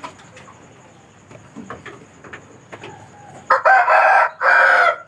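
A rooster crows once, loudly, about three and a half seconds in. The crow lasts about a second and a half and has a short break partway through.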